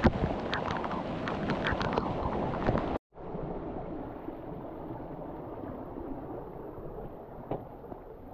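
Rushing outdoor noise of creek water and wind on the microphone, with scattered clicks and knocks for the first three seconds; after a sudden break it goes on as a quieter, steadier rush.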